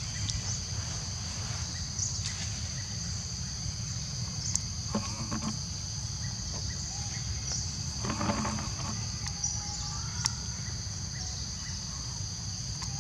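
Steady high-pitched insect chorus with a low rumble underneath and a few faint clicks and rustles.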